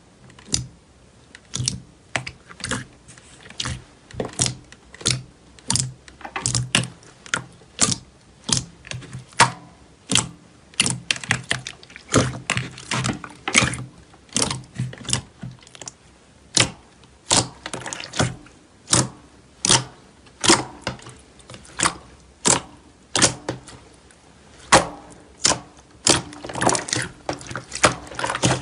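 Slime being kneaded and pressed by hand, giving a steady run of sharp clicks and pops of trapped air, about one or two a second.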